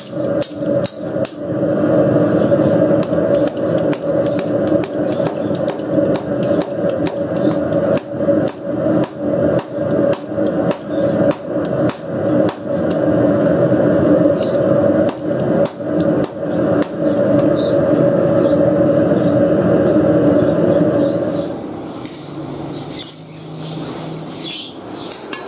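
Hand-hammer blows on a red-hot steel hex nut being forged flat on a steel anvil post, a steady run of roughly two strikes a second over a continuous low hum. Near the end the hammering stops and gives way to the quieter crackle of arc welding.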